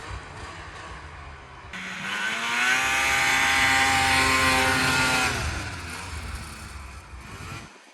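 2001 Ski-Doo MX Z 600 snowmobile's two-stroke twin engine revving. Its pitch climbs about two seconds in, holds high and loud for a few seconds, then falls back toward idle.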